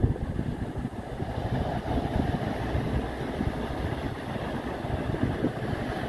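Sea surf surging and breaking over shoreline rocks, heard as a steady low rumble, with wind buffeting the microphone.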